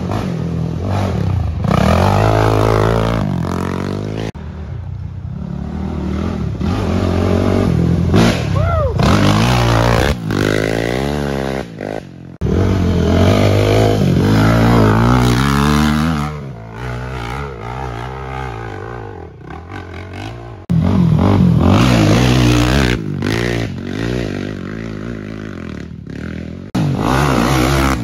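Racing ATV engines passing close by, revving up and falling back through the gears again and again as the quads accelerate along a dirt trail. The sound changes abruptly several times as one short pass gives way to the next.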